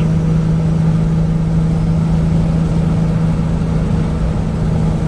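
Nissan Patrol Y60 at road speed, heard from inside the cab: a steady low drone from the engine and drivetrain over tyre and road noise. The driver says the gearbox has got noisy and needs replacing.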